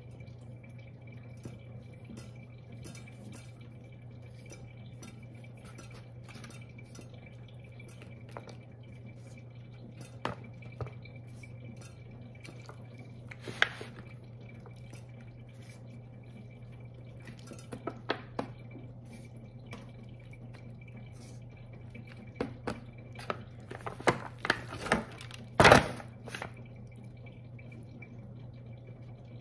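Hands sprinkling flour onto a raw whole chicken and rubbing it in, in a disposable aluminium foil tray: soft scattered taps and crinkles of the foil and the plastic scoop. Louder clatters come in the second half, the loudest a sharp knock near the end, over a steady low hum.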